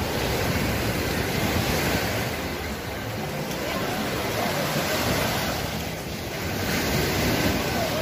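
Small waves breaking and washing up on a sandy shore, their steady hiss swelling and easing every few seconds, with wind on the microphone.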